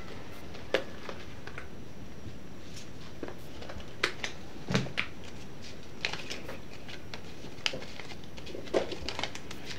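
Handling noises from a leather handbag and paper banknotes: a scatter of short, irregular clicks and paper rustles as the bag is opened and notes are taken out and flicked through.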